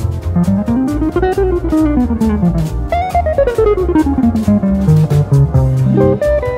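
Semi-hollow electric guitar playing fast single-note jazz runs that climb and fall twice, over a bass and drum backing.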